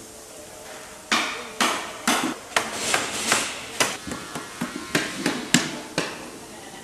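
A quick, irregular run of sharp knocks on wood, about a dozen in five seconds, starting about a second in, like hammering in the assembly of wooden cable drums.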